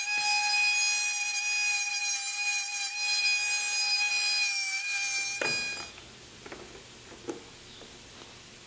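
Pneumatic die grinder running at speed with a steady high-pitched whine, grinding down the over-wide tab of an aftermarket headlight trim ring. The whine dips slightly near the end and stops about five and a half seconds in. A few light metal clicks follow as the ring is fitted to the headlight.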